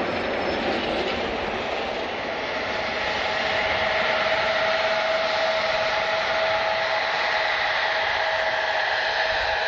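Jet airliner engines running: a steady rushing noise with a whine that comes in about two and a half seconds in and holds, growing somewhat louder.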